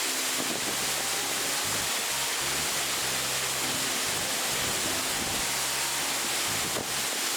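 Waterfall rushing steadily, an even roar of falling water. Low sustained tones underneath shift in pitch every second or so.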